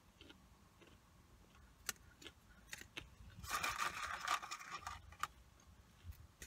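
Soft handling noises while eating a fast-food meal: a few small clicks, then about three and a half seconds in a rustle of food packaging lasting about a second and a half.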